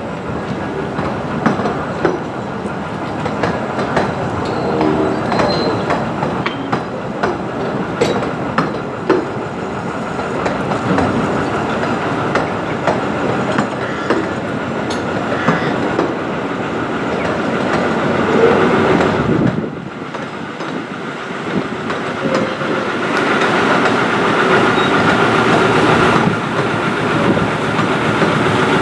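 15-inch-gauge miniature railway passenger coaches rolling slowly past, their wheels clicking over the rail joints, with a faint wheel squeal now and then. The sound grows louder in the last few seconds.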